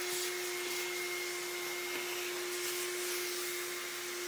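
A steady machine hum with an airy hiss, like a fan or blower running: one constant low tone that does not change.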